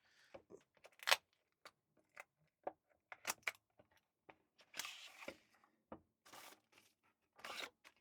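A small cardboard product box being opened and unpacked by hand: a string of light taps and clicks from the box and its flaps, with a few brief rustling, tearing scrapes as the packaging and contents are pulled out.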